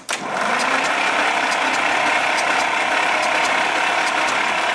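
Ursus C-325's two-cylinder diesel being cranked over by its electric starter, a steady even churning that starts just after the beginning, without the engine firing. The battery is too small and weak for it after a winter without starting.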